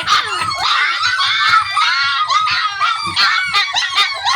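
A litter of four-week-old puppies whining and yelping over one another, many short high-pitched cries in quick succession: hungry pups crying for their food.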